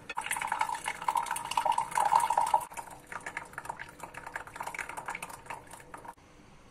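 Tea poured from a French press into a glass mug: a steady stream of liquid, loudest in the first few seconds, briefly breaking off and going on more quietly until it stops about six seconds in.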